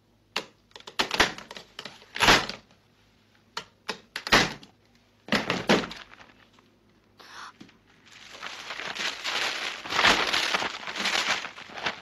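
Several separate knocks and thumps, the loudest about two and four seconds in, followed by about four seconds of continuous rough rustling noise.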